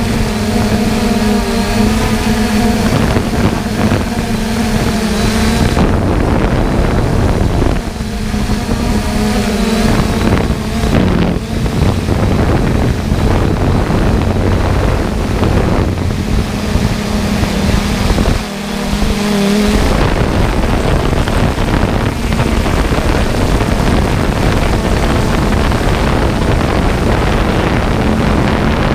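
Harvest machinery engine running steadily under load, with wind buffeting the microphone; a low engine tone fades in and out along the way.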